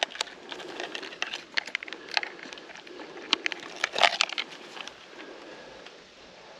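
Irregular clicks and knocks from handling a digital fish scale and a smallmouth bass as the fish is clipped onto the scale's lip grip. The loudest knock comes about four seconds in, and it goes quieter after about five seconds.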